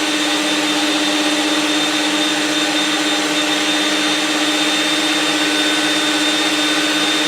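Electric drill motor running at a steady, unchanging speed with a high whine, driving a StripMeister wire stripping machine that pulls number 12 stranded THHN wire through its blade to slit the insulation.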